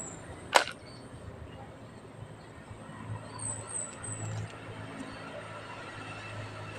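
Outdoor creekside ambience: small birds give a few quick, high chirps that fall in pitch, three in a row around the middle, over a low steady rumble. A single sharp click comes about half a second in.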